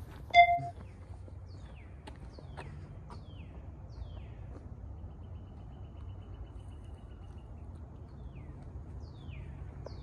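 Wild birds calling: a series of short, falling chirps, roughly one a second, over a steady low rumble of outdoor background noise. A short, loud beep sounds just after the start and is the loudest thing heard.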